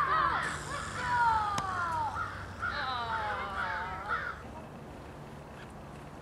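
Air rushing out of the neck of an inflated party balloon as it is released, giving a rasping squeal whose pitch slides and falls. It comes in two stretches and cuts off about four seconds in, once the balloon is empty.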